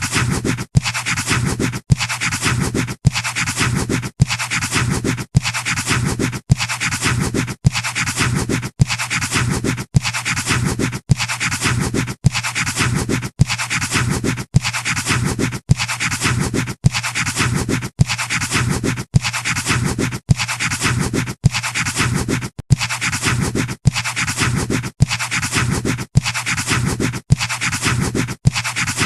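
Pencil scratching on paper, played as a looped sound effect: the same short drawing stroke repeats about once a second, each separated by a brief gap.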